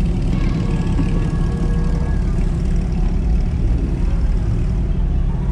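First-generation Honda NSX's mid-mounted V6 engine running at low revs as the car rolls off slowly, heard from inside the cabin as a steady low drone.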